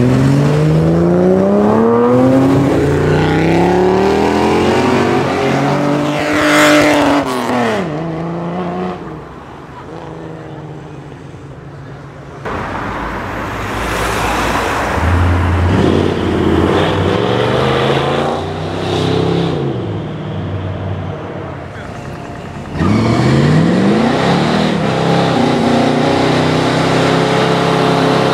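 Car engines accelerating hard one after another, revving up in pitch as each car pulls away and passes. Near the end an old 1940s Chevrolet convertible revs up and holds its engine at high revs in a smoky burnout, rear tyres spinning.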